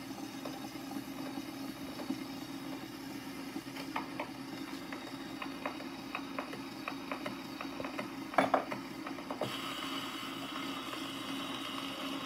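Wind-up acoustic gramophone turning a 78 rpm shellac record: a steady mechanical hum with scattered small clicks, then a short cluster of clicks as the soundbox needle is set down on the record about eight and a half seconds in. After that comes the hiss of the steel needle running in the lead-in groove.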